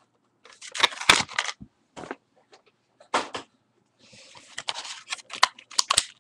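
Small plastic toy parts and packaging being handled: a series of sharp clicks and taps, with a short rustle of packaging about four seconds in.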